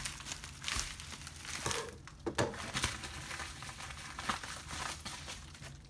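Plastic mailer bag crinkling and rustling in irregular crackles as it is cut open and handled.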